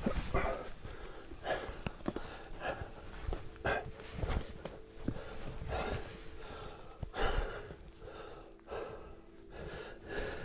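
A climber's heavy, gasping breathing: irregular loud breaths about every second or so from the exertion of scrambling up steep rock with a pack. Scattered knocks and scrapes of hands and boots on the rock come in between.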